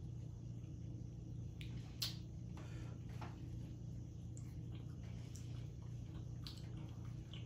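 Eating sounds from boiled crawfish: shells cracked and peeled with gloved hands, with scattered wet clicks and snaps, the sharpest about two seconds in, over a steady low hum.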